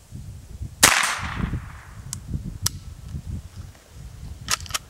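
.22 rifle fired once about a second in: a sharp crack with a short decaying tail. A couple of light sharp clicks follow, and a quick cluster of clicks comes near the end.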